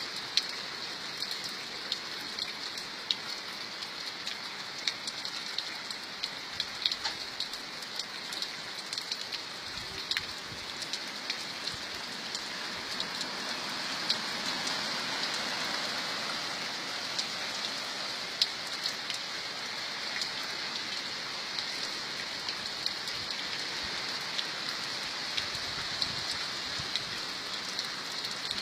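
Steady rain falling, with frequent sharp drops ticking on a nearby surface. The rain swells slightly about halfway through.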